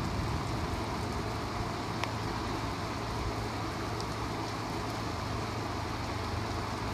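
Steady rain on a car heard from inside the cabin, with a low steady hum underneath and a few faint ticks of drops about two and four seconds in.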